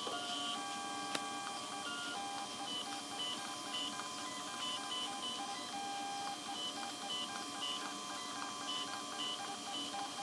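Creality CR-6 SE 3D printer's stepper motors singing in several steady tones that shift in pitch every fraction of a second as the print head moves and probes point after point across the bed during automatic bed leveling.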